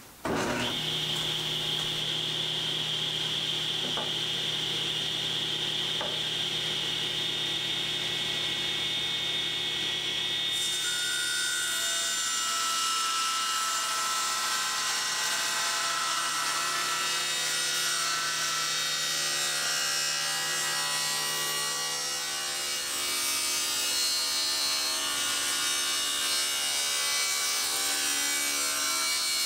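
Table saw running, its blade tilted to 45 degrees, cutting bevels along plywood panels. The sound is steady and even, and turns hissier from about ten seconds in.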